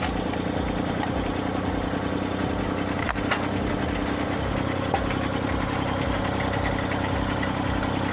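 Engine of a hydraulic log splitter running steadily, its tone shifting slightly about halfway through, with a couple of short sharp cracks as wood splits.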